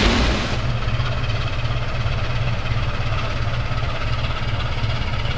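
A passing train's wheel and rail noise dies away about half a second in, leaving a large diesel engine idling, a steady low rumble.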